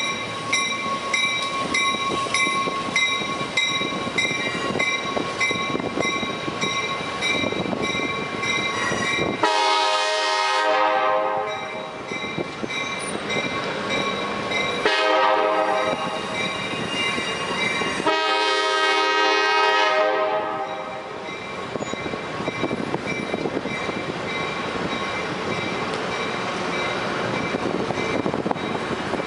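Train horn sounding three times, a long blast about nine seconds in, a shorter one around fifteen seconds and another long one from about eighteen seconds. Underneath is the steady noise of the train running on the rails. Before the horn, a bell rings steadily with an even beat.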